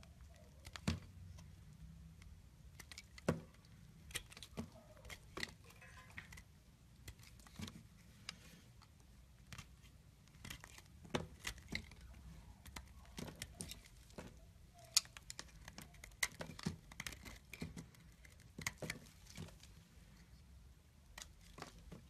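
Utility knife blade cutting and shaving a hard bar of green soap, giving irregular crisp cracks and crunches as pieces break away, with the loudest snaps about a second in, about three seconds in and about fifteen seconds in.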